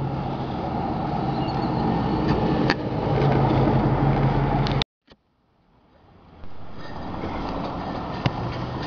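Traffic noise with a steady engine hum, from a vehicle running close by. About five seconds in the sound cuts out abruptly, then fades back up about a second and a half later.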